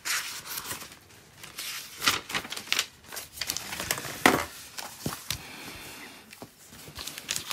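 Paper chart rustling under a clear plastic course plotter and a spiral notepad as they are slid and moved across it, with irregular scrapes and a few sharp clicks, the loudest about two and four seconds in.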